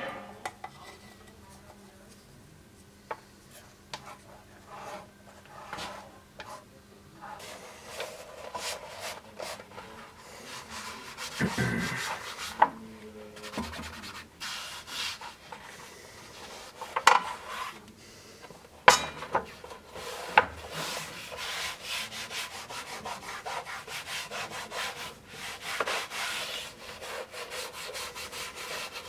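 Hands handling, rubbing and smoothing leather over wooden strips on a workbench: scraping and rustling that grows busier after the first few seconds, with a few sharp knocks of wood on the bench in the middle.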